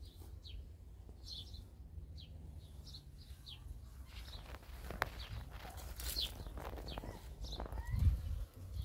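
Small birds chirping in short, high, scattered calls over a low rumble, with a few sharp clicks around the middle and a louder low thump near the end.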